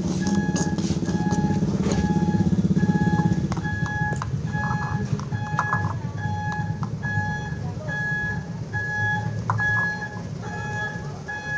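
Truck's reversing alarm beeping steadily, one short two-pitch beep about every half second, over the low rumble of its engine, which is loud for the first three and a half seconds and then fades.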